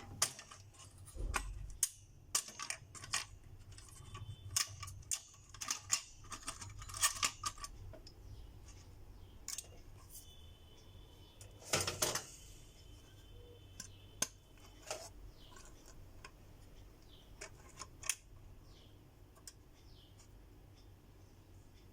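Irregular small clicks, taps and light metallic knocks of computer parts and tools being handled. The clicks are dense for the first several seconds, then come as a louder cluster about halfway through and thin out to a few after.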